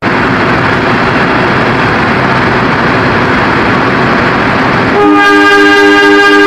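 Diesel locomotive air horn sounding a long blast about five seconds in, two tones at once with one of them faintly pulsing, over a steady rushing noise; the horn signals the Mataram train pulling out.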